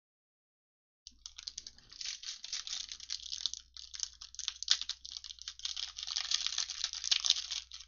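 Foil wrapper of a trading-card pack crinkling and tearing as it is opened by hand: a dense crackle of small clicks that starts about a second in.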